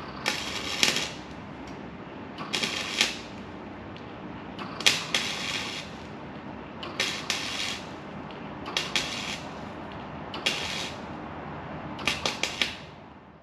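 Welder stitch-welding a sheet steel patch into a rusted vehicle sill: seven short crackling bursts, each under a second and about two seconds apart.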